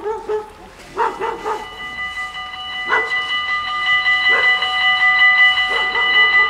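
Level-crossing warning bells start ringing about a second in, a rapid, even ringing that grows louder, as the automatic half-barrier crossing begins its warning cycle. A dog barks a few times over it.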